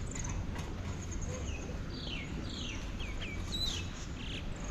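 A small bird calling: a run of short, quick chirps, each sliding downward, starting about two seconds in. A low steady rumble runs underneath.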